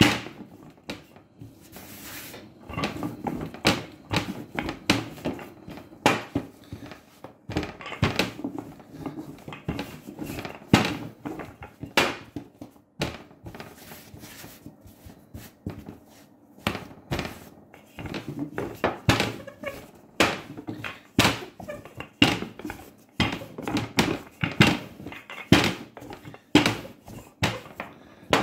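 Wooden rolling pin rolling pizza dough out on a glass-topped table, with many irregular knocks and thuds as the pin and hands strike the glass.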